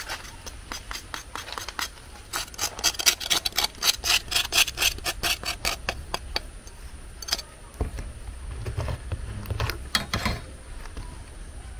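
Rapid run of scraping, clicking strokes, densest a couple of seconds in, then a few separate knocks with a low rumble near the end.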